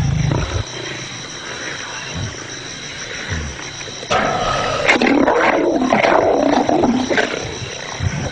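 Lions growling and snarling while feeding on a buffalo kill. A low growl opens the sound, then a loud stretch of snarling starts about halfway through.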